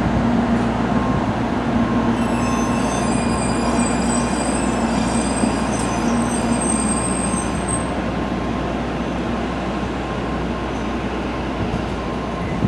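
Tokaido Shinkansen train running on the station tracks: a steady, loud rush of train noise. A high, multi-toned whine joins it about two seconds in and fades out around eight seconds.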